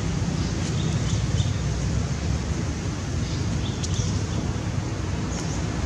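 Steady wind rumble on the microphone, with a few faint, short high-pitched chirps scattered through it.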